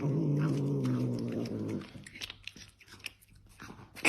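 A cat makes a low, drawn-out growling yowl that wavers and sags slightly in pitch and stops a little under two seconds in. Scattered soft clicks of chewing follow.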